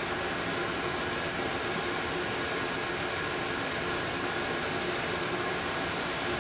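Butter and pancake batter sizzling on a hot griddle pan: a steady hiss that turns brighter about a second in, as batter is squeezed onto the pan.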